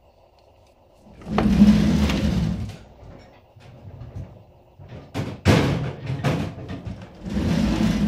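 Workshop handling noises from working on the brake parts: three bursts of scraping and rustling, the middle one with a few sharp clicks.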